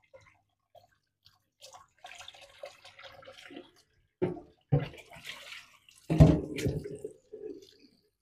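Water splashing and dripping as blanched pork pieces are rinsed and handled in a basin, with three heavy thuds about four, four and a half and six seconds in, the last the loudest.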